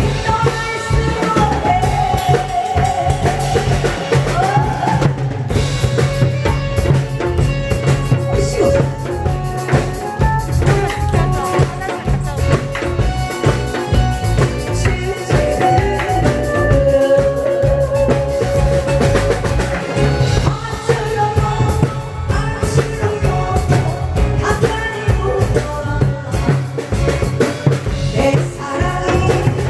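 Upbeat music with a steady drum-kit beat, kick and snare, and a melody line over it.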